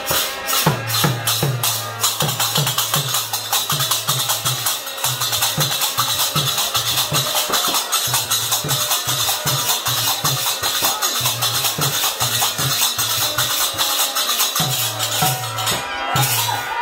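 Kirtan music carried by percussion: fast, continuous hand-cymbal clashing over a drum beating about three strokes a second, each stroke dropping slightly in pitch.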